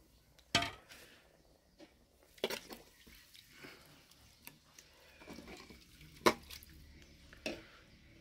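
A handful of sharp knocks of a utensil against an aluminium cooking pot holding soup, the loudest about six seconds in, over a faint steady background.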